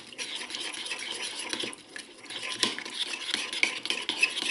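Metal spoon stirring a runny peanut butter and soy sauce mixture in a ceramic bowl, with quick scraping and clinking against the bowl's sides and a short pause about two seconds in.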